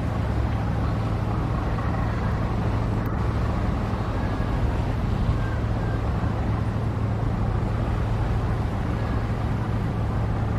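Steady low engine rumble with a constant deep hum, unchanging in level.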